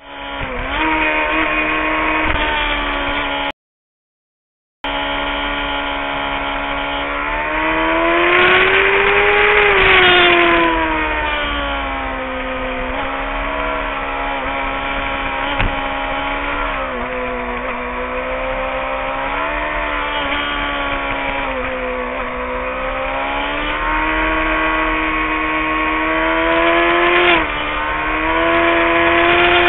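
Street motorcycle engine running at road speed, its pitch rising and falling as the throttle is opened and eased. The sound cuts out completely for about a second a few seconds in, and the pitch drops suddenly near the end.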